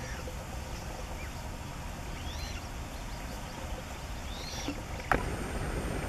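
Coot chicks giving two faint, high, arching begging calls over a steady low background rumble, with one short sharp call or knock near the end.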